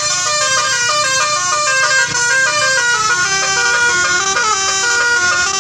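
A tour bus's telolet horn, a multi-tone musical air horn, playing a fast tune of stepped notes that change several times a second, loud and without a break.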